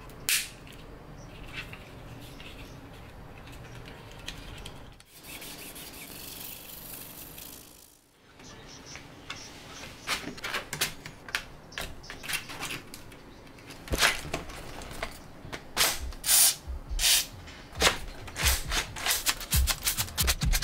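3D-printed PLA plastic parts being handled and fitted together: soft rubbing and sliding, then from about halfway a run of sharp plastic clicks and knocks that grows busier near the end.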